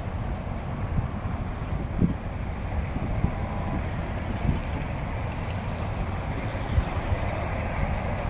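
City street traffic: motor vehicles running past with a steady low rumble, with a few faint knocks.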